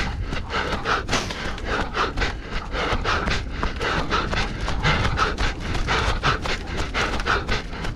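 Hard panting breaths of a running effort, with quick footfalls about three a second on a trail, over a steady low rumble.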